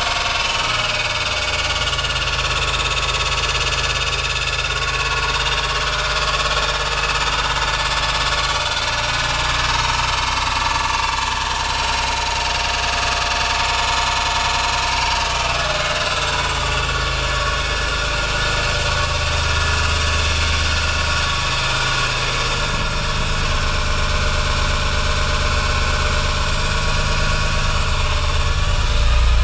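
Nissan 300ZX's twin-turbo VG30DETT V6 running near idle with an abnormal noise, its low note shifting a few times and getting louder near the end. The cause of the noise is not yet found: compression and timing check out and the VTC solenoids work.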